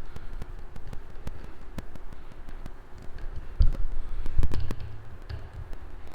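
Scattered clicks and knocks of a screwdriver driving small screws back into a motorcycle throttle housing, with a few heavier thumps and a brief low hum about four seconds in, picked up by a GoPro microphone that distorts.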